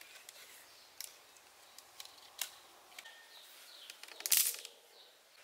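Dry wooden sticks being handled and bound into a fence: scattered sharp wooden clicks, then one louder crackle about four seconds in.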